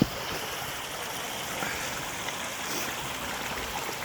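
Small mountain stream running steadily through a gorge, a continuous rushing of water. One sharp knock right at the start.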